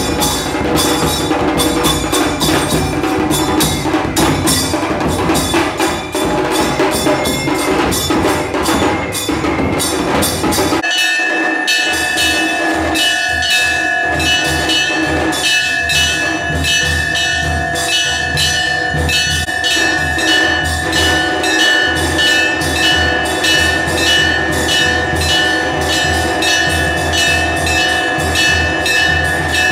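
Temple bells ringing loudly together with fast rhythmic percussion. The sound changes abruptly about eleven seconds in; after that a steady, continuous bell tone carries on over the beat.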